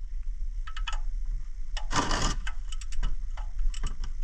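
Ratchet of a torque wrench clicking in short runs while a bolt is turned, with a louder clank about two seconds in.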